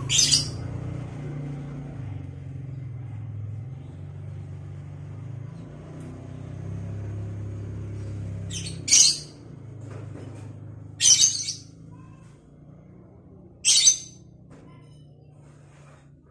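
Lovebird giving short, shrill, high-pitched calls: one at the start, then three more about two to three seconds apart in the second half. A low steady hum runs underneath, fading towards the end.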